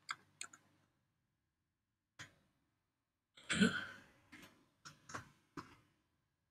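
A handful of short, sharp keyboard keystroke clicks, spaced unevenly and clustered between about four and six seconds in as the vim save command is typed, with a brief breathy vocal sound from the typist about three and a half seconds in.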